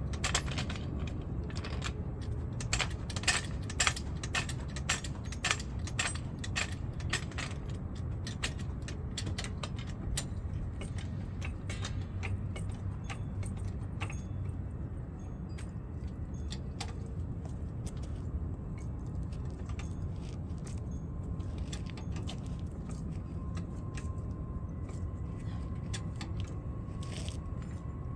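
Irregular metallic clinks and rattles from metal parts or tools being handled, most frequent in the first eight seconds and sparser after, over a steady low hum.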